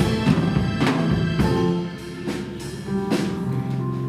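Live instrumental church music with drums and sustained keyboard notes; the drum strokes fall in an uneven beat.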